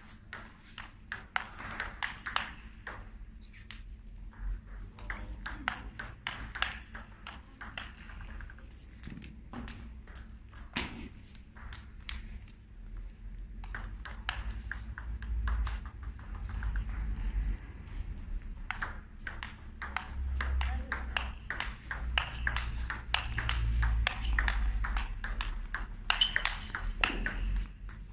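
Table tennis ball clicking off the rubbers and bouncing on the table in quick rallies, many sharp clicks in irregular runs. A low rumble sits underneath in the middle and later part.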